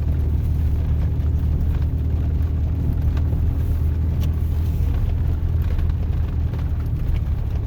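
Steady low rumble of a truck's engine and road noise, heard inside the cab while driving slowly.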